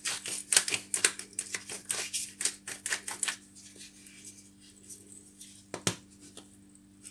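Hand-twisted pepper mill grinding pepper over the dish: a quick run of dry ratcheting clicks, about six a second, that stops about three seconds in. A single knock follows near the end.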